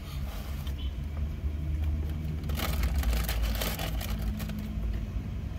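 Low steady rumble of a car's cabin, with a burst of crinkling paper about two and a half seconds in, as a paper-wrapped burger is handled.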